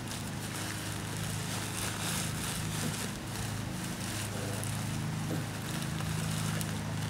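Crushed malted grain poured from a plastic bag into a cooler mash tun, the bag crinkling, over a steady low mechanical hum.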